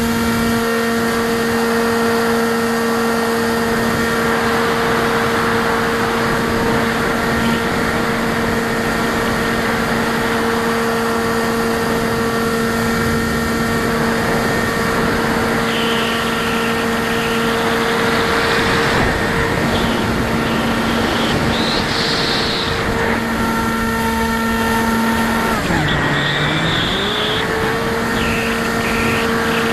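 Electric motor and pusher propeller of a Bixler foam RC plane heard from a camera on the plane in flight: a steady high whine over wind rushing past. Near the end the pitch dips sharply and then climbs back to the same whine.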